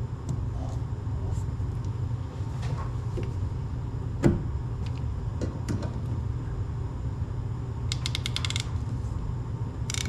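Tools and pipe handled at a PEX-to-copper joint: scattered clicks and knocks, one louder knock about four seconds in. About eight seconds in comes a quick run of ratcheting clicks as a hand PEX clamp tool is squeezed onto the pipe. A steady low hum runs underneath.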